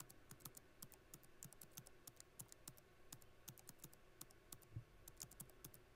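Quiet computer keyboard typing: a steady run of light key clicks at an uneven, fairly quick pace.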